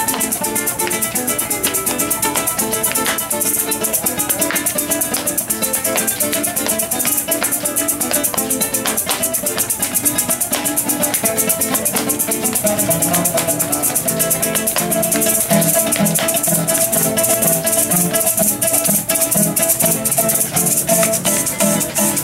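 Live llanera music: a cuatro strummed in a fast, even rhythm with maracas shaking steadily over it. About twelve seconds in, a held note and a run of repeated low plucked notes come in.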